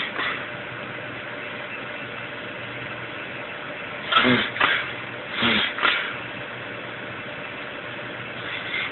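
Two pairs of short, sharp, noisy breaths, about four and five and a half seconds in, of the kind the uploader asks may be reverse sneezing: fits of forceful inhalation through the nose. They stand out over a steady background hum.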